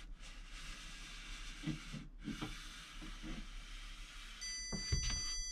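Handheld electronic stud finder sliding across textured drywall with a steady scraping hiss. The hiss stops briefly twice as the finder is lifted and set back, with a few soft knocks. Near the end the stud finder gives a steady high beep, its signal that it has found a stud.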